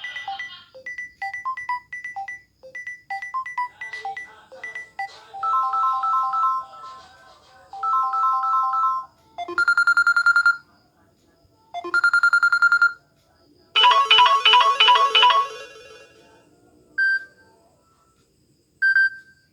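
Samsung Galaxy A20s phone speaker playing a series of different ringtones and notification tones: a run of short melodic beeps, two bursts of repeated chord pulses, two short trilling rings, a fast trilling pattern, then two brief chimes near the end, with pauses between them.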